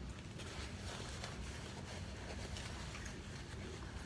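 Quiet chewing of a sandwich with faint, scattered small clicks, over a steady low hum.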